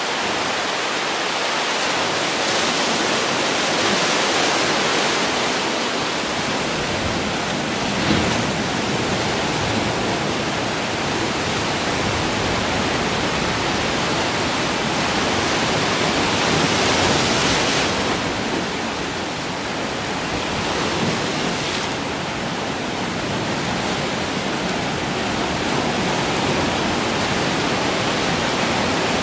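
Ocean surf washing into a rocky cove, a continuous wash of breaking waves and foaming water over boulders. It swells louder a few seconds in and again about halfway through, with one brief sharp surge around eight seconds.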